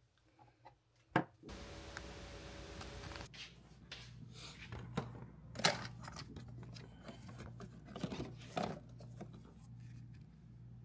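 Small objects being handled in a small room: a sharp click, then an even hiss lasting about two seconds, then scattered knocks and rustles over a steady low hum.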